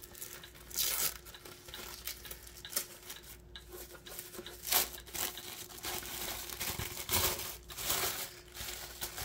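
Packaging wrap being torn open and crumpled by hand: irregular rustling and tearing, with sharper, louder rips about a second in, about five seconds in, and several in the last two seconds.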